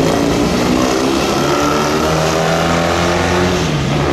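Engines of classic motorcycles running past on the track, one steady engine note dropping in pitch near the end.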